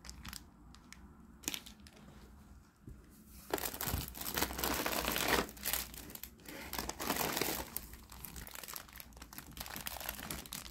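Crinkly snack packaging being handled and rummaged out of the box: a few light clicks and taps at first, then from about three and a half seconds in, continuous loud crinkling and rustling.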